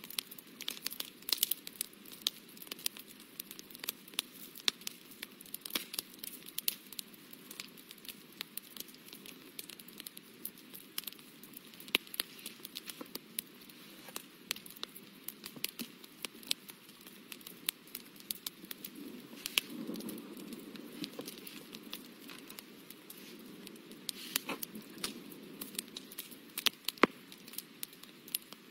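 A fine pen tip working on textured watercolour paper: many short scratchy strokes and small ticks, with a soft rustle of the hand on the paper that swells for a couple of seconds around the middle.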